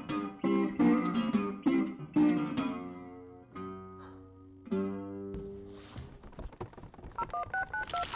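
Acoustic guitar strumming, thinning to a few ringing notes that fade out about five seconds in. A few soft low knocks follow, then near the end a quick run of short electronic keypad beeps that step between pitches.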